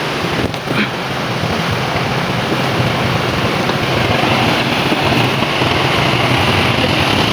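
JCB 3DX backhoe loader's diesel engine running under steady load, with a rushing noise over it and a higher whine coming in about four seconds in.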